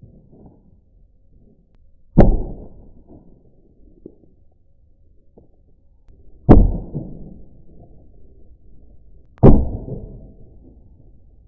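Sledgehammer smashing a Nokia 3310 mobile phone: three heavy blows, about four and then three seconds apart. Each is a sharp bang that dies away over about a second.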